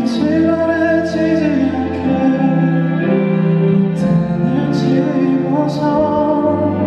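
Live performance of a slow ballad: a male singer's voice with instrumental accompaniment, the notes long and held.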